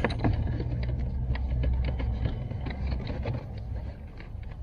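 Small clicks and rustles of electrical wires being handled and pulled through a hole in the car, over a low rumble that fades about three seconds in.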